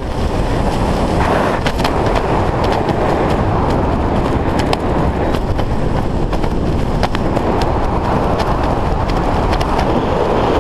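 Loud, steady wind rushing over a helmet camera's microphone during a parachute descent, with scattered sharp ticks throughout.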